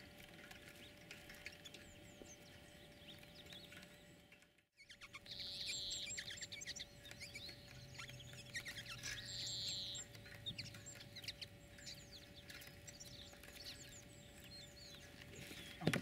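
Small finches, common linnets among them, chirping busily in quick short calls, with two brief buzzy trills, over a faint steady hum. Right at the end there is a sudden sharp snap as the clap net is sprung.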